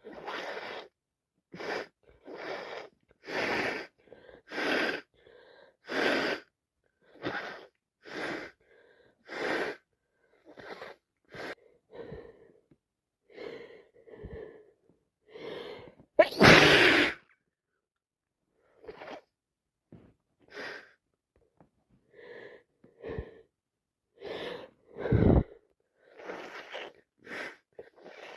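A woman with a head cold and sinusitis sniffing and sneezing over and over, in short bursts about once a second with brief silences between. One much louder, longer burst comes about sixteen seconds in.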